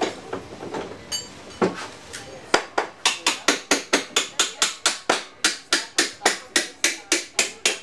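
Hammering: from about two and a half seconds in, fast, evenly spaced hammer blows, about five a second, as a mechanic works on a sidecar-cross outfit. Before them come a few scattered tool knocks and a brief metallic ring.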